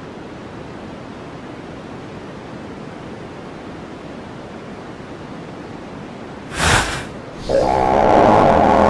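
A steady hiss for about six and a half seconds, then a short loud blast, then a long, loud, buzzing cartoon fart sound effect that starts about a second later and keeps going.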